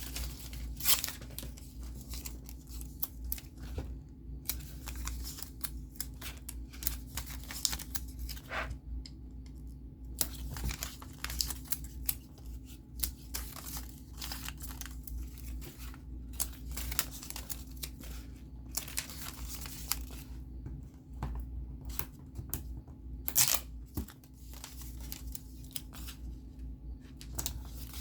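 Paper and plastic crinkling and rustling in irregular bursts as craft kit pieces are handled, with sharp tearing sounds, over a faint steady hum.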